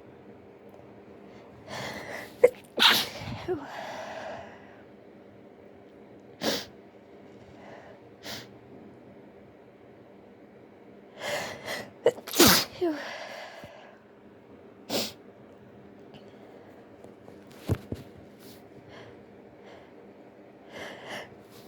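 A person sneezing repeatedly while trying to stifle the sneezes, only partly succeeding. Two stronger sneezes come about 3 s and 12 s in, each after a short run-up, with shorter sharp bursts between them.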